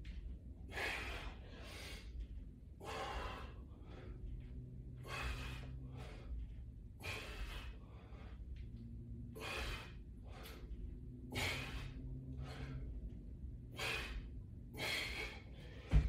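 A man breathing hard with the effort of push-ups, a sharp breath in or out every second or two.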